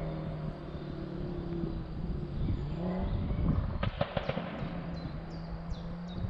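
Audi TT RS's five-cylinder engine through an Akrapovic exhaust, heard at a distance out of sight, its note steady, then gliding in pitch as it shifts. A short burst of exhaust crackles and pops comes about four seconds in.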